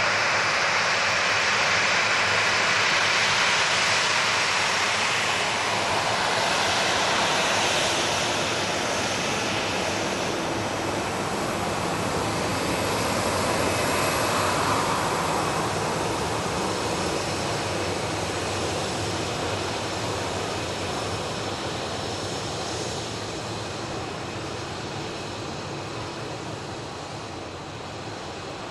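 A Transavia Boeing 737's twin jet engines running at taxi power, a steady rushing whine. It fades gradually as the airliner turns and moves away.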